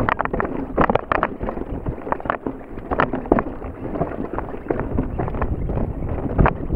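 Mountain bike clattering down a rocky dirt trail, with irregular sharp knocks as the tyres strike rocks and the bike rattles. Wind is rumbling on the camera's microphone throughout.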